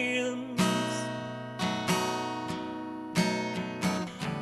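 Acoustic guitar strumming slow chords about once a second, each left to ring and fade before the next, in an instrumental gap of a sung ballad. A held sung note trails off at the very start.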